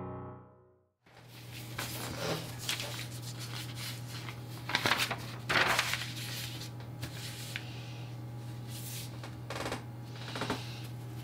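A sheet of drawing paper rustling and sliding over a plasterboard as it is handled into position, in a handful of short rustles over a steady low hum. Piano music fades out in the first second.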